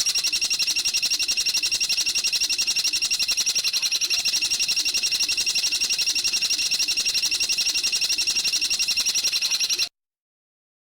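High, rapid bird trill of about ten even notes a second, held steadily for around ten seconds and then cutting off abruptly.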